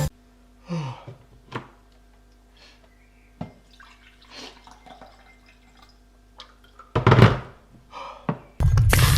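Water dripping and splashing in a small room, with scattered faint ticks and knocks and a louder splash-like rush about seven seconds in. Music comes back near the end.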